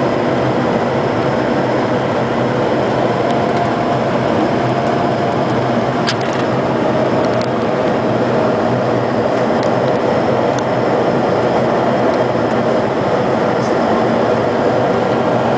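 Steady flight-deck noise of a Bombardier Challenger 300 jet on final approach: an even rush of airflow and engine noise, with a few faint clicks.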